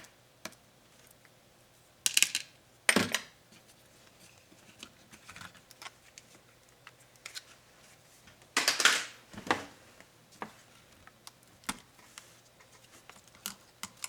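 Dell Inspiron 7558 laptop being taken apart by hand: scattered small clicks and taps of tools and plastic parts, with two louder scraping rasps about two and nine seconds in.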